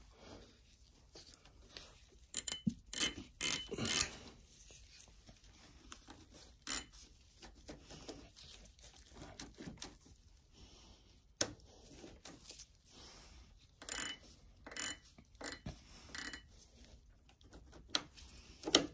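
Sharp metallic clicks and clacks from hand work on a motorcycle's handlebar clutch lever and controls, in two clusters: a few seconds in and again about fourteen seconds in.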